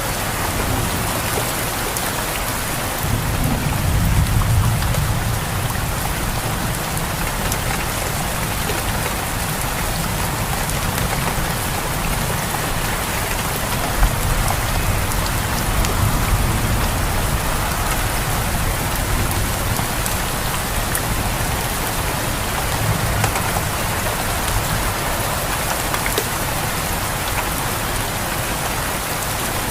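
Steady, heavy rain pattering on surfaces, with low rumbles of distant thunder, the strongest about four seconds in and fainter ones later.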